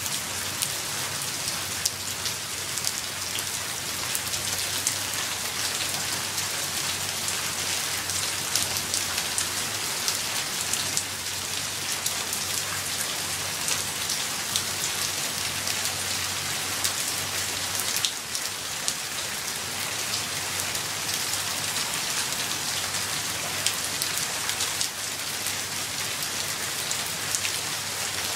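Steady rain falling: a constant even hiss with many separate drop ticks landing close by.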